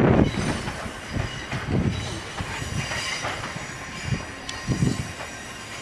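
Ichibata Electric Railway 3000-series two-car electric train rolling slowly over the yard's rail joints and points. Its wheels give irregular heavy knocks, about five, over a steady rumble, with a faint high squeal above.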